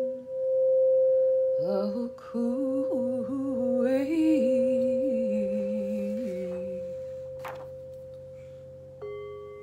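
A brass singing bowl rings with one steady tone while a woman's voice hums into it for a few seconds, the pitch wavering and sliding. About nine seconds in, a second bowl is struck with its mallet and sounds a new, lower ringing tone over the first.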